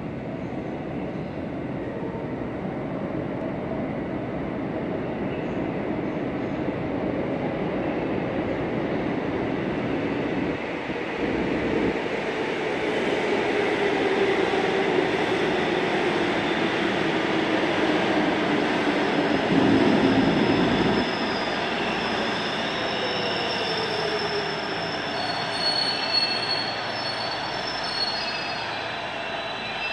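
Busan Metro Line 1 subway train pulling into an underground station. The running noise builds to its loudest about twenty seconds in, with a whine that falls in pitch as the train slows. High wheel and brake squeals come near the end as it comes to a stop.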